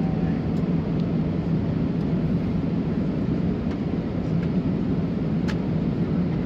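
Steady cabin noise inside an Airbus A330-300 airliner: the even drone of engines and air conditioning, deepest and strongest low down. A faint click about five and a half seconds in.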